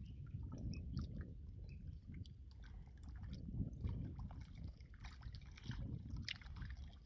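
Lakeside water ambience: an uneven low rumble, like wind on the microphone, under light water sloshing, with scattered faint high chirps and clicks.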